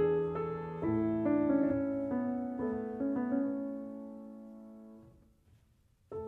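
Background piano music, with single notes ringing and decaying. The music fades away over the last few seconds to a short silence, then starts again right near the end.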